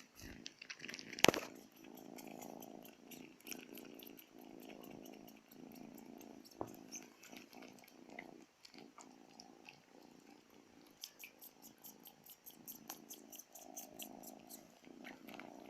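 Domestic cat purring, swelling and ebbing with each breath in roughly one-second cycles. One sharp click about a second in is the loudest sound.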